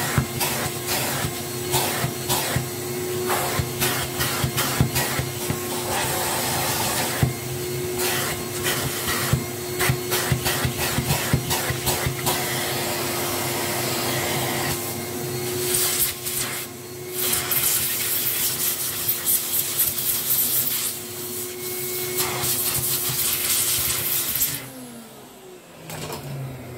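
A vacuum cleaner running, its crevice nozzle rubbing and scraping over a dusty filter pad in rapid strokes. Near the end the motor is switched off and winds down in a falling whine.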